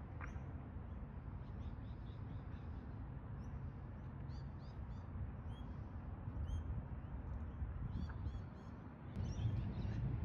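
Small birds chirping, short high calls in quick clusters and some down-slurred notes, over a steady low outdoor rumble that grows louder about nine seconds in.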